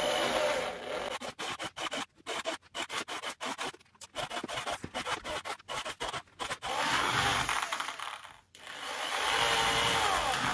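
Electric drill boring pilot holes through the wooden shell of a bass drum. The footage is sped up, so the drilling comes in rapid, choppy bursts through the middle, with longer stretches of steady drill whine at the start and over most of the second half.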